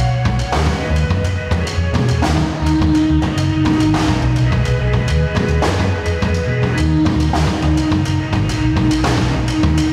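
Live band playing: a drum kit keeps a steady beat under electric bass, with held keyboard notes that change pitch a few times.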